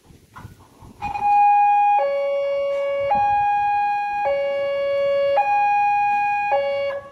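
Railway level-crossing alarm: an electronic two-tone signal that starts about a second in and alternates between a higher and a lower tone roughly once a second, sounding as the barrier arms lift.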